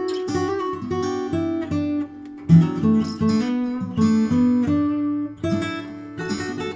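Steel-string acoustic guitar played fingerstyle, solo: a melody of plucked notes over bass notes, with a brief lull about two seconds in broken by a strong accented note.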